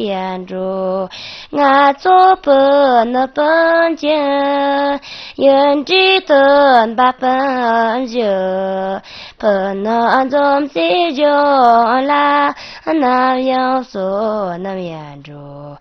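A high voice singing an unaccompanied melody in phrases of held notes that bend and glide between pitches, with short breaks for breath. Near the end the pitch steps down lower.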